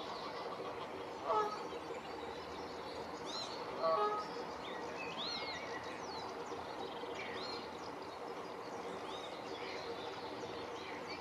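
Wild birds singing and chirping in a steady chorus, with two short, louder, lower calls about a second and a half and four seconds in, over a steady faint hum.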